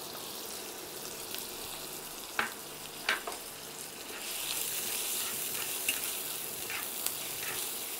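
Finely chopped onions sizzling in hot vegetable oil in a non-stick frying pan as they are stirred with a silicone spatula. There are a couple of sharp taps a few seconds in, and the sizzle grows louder about halfway through as the onions are spread through the oil.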